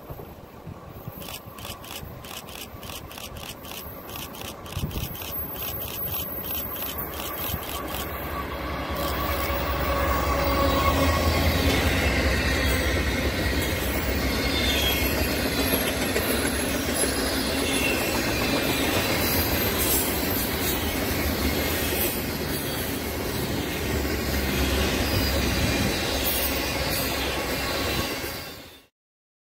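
Freight train approaching and passing close by: a rumble of locomotive and steel wheels on rail that builds over the first ten seconds, then the steady rolling noise of double-stack container cars going past, cut off abruptly near the end. A fast ticking runs through the first eight seconds.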